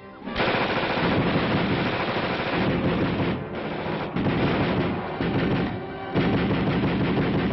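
Automatic weapons firing long, rapid bursts of gunfire. There are brief breaks a little over three seconds in, at about four seconds and at about six seconds.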